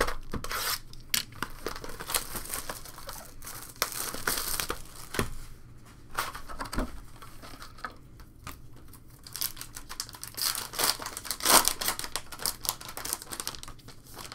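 A foil trading-card pack wrapper crinkling and tearing in someone's hands, with rustling as a cardboard card box is opened; a run of rapid crackles, loudest a few seconds before the end.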